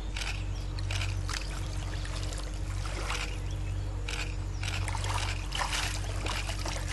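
River water splashing and sloshing in repeated short splashes as a large crocodile rises out of the shallows, over a steady low hum.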